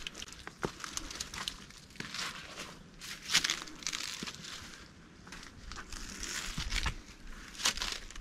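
A hiker's footsteps crunching on the trail surface: irregular crunches and scuffs about one a second, the loudest about three seconds in.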